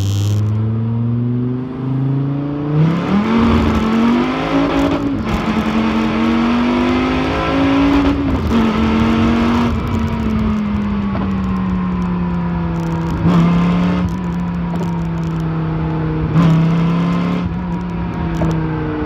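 Gen 6 Dodge SRT Viper's 8.4-litre V10 through an Agency Power aftermarket exhaust, heard from inside the cabin under hard acceleration: the engine note climbs through the gears, its pitch dropping back at each shift, then holds a high, slowly falling note. It is marked by a couple of short sharp cracks, and the pitch falls away as the throttle closes near the end.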